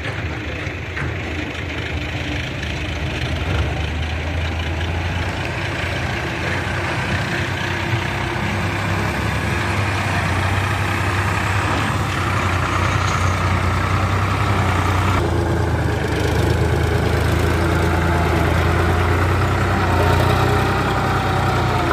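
Sonalika DI 50 tractor's diesel engine running steadily while hauling a trailer loaded with river sand, growing gradually louder as it comes closer.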